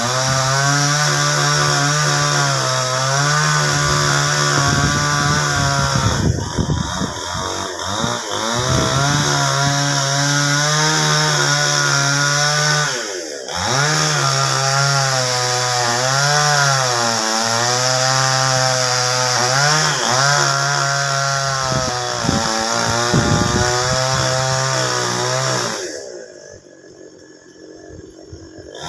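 Chainsaw cutting a sengon tree, the engine pitch sagging and rising as the chain bites into the wood and revs free. It drops briefly a couple of times and falls back to a quieter idle near the end.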